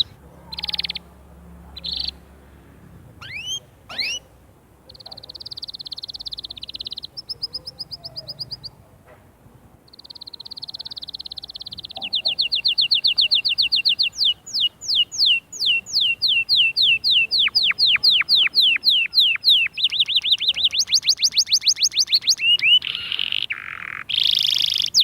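Canary singing a long, varied song: separate chirps and rising whistles, then buzzy trills, and from about halfway long rolling runs of rapid repeated notes that change speed and pitch.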